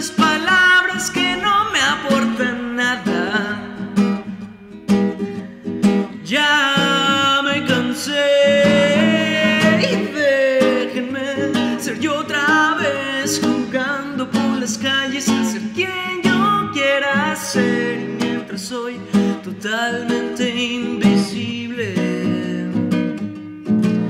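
A man singing over his own nylon-string classical guitar.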